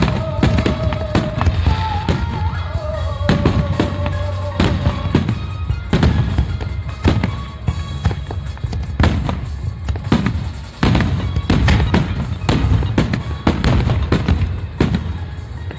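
Aerial firework shells bursting in quick, irregular succession, a few sharp bangs every second over a constant low rumble. A few held tones sound through the first five seconds.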